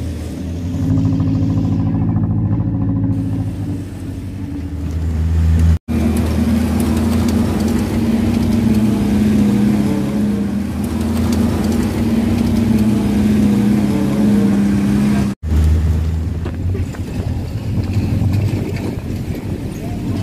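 Engines of old Willys-type open jeeps running as the jeeps drive over rocky, gravelly ground, a steady low engine tone that cuts off abruptly twice.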